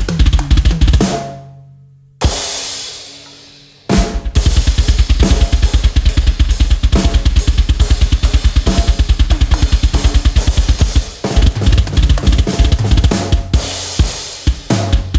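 Drum kit played with oversized drumsticks. A burst of hits, then a single hit about two seconds in that is left to ring out. From about four seconds there is a fast, steady heavy-rock beat on bass drum and snare, with fills and cymbal crashes near the end.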